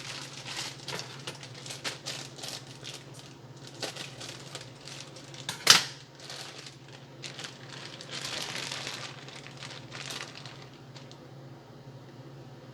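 Sandwich-making handling sounds: quick clicks and rustling of food packaging, with one sharp knock just under six seconds in, over a steady low hum. The handling dies down near the end.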